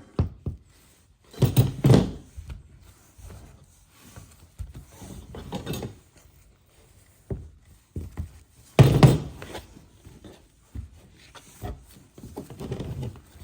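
Hands working on a motorcycle seat's foam and gel pad: irregular rubbing and small knocks, with two louder thuds about 2 seconds and 9 seconds in.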